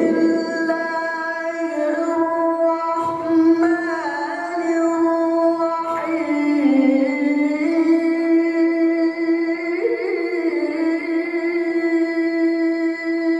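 Melodic Quran recitation: one voice holding a long, ornamented note on a single vowel, with slow turns in pitch, a dip about six seconds in and a brief rise near ten seconds.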